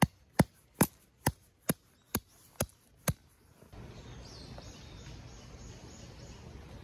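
Hammer driving a tent peg into the ground: about eight sharp, even strikes a little under half a second apart, stopping about three seconds in.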